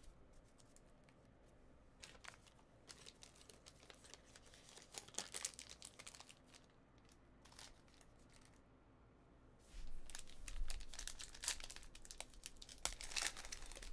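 Foil trading-card pack wrapper crinkling and being torn open, with scattered light crackles at first, then denser, louder crinkling from about ten seconds in.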